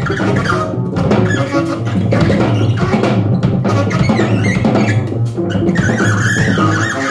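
Live jazz trio playing: saxophone, upright double bass and drum kit, the drums played with mallets.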